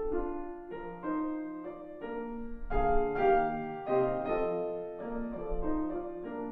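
Solo classical piano played on a Longato grand piano: a melodic line over chords, the notes changing about every half second and left ringing.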